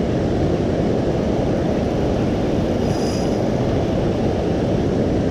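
Steady low rumble of wind buffeting the camera's microphone, mixed with the rush of the fast-flowing river current.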